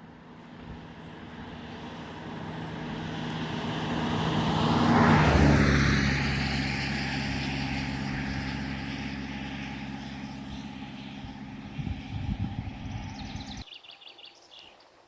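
A motor vehicle passing by: a steady engine hum with a low drone builds for about five seconds, drops in pitch as it goes past, then slowly fades. It cuts off abruptly near the end.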